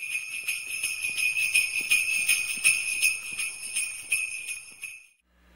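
Jingle bells shaken in a steady rhythm, a bright ringing jingle that stops abruptly about five seconds in.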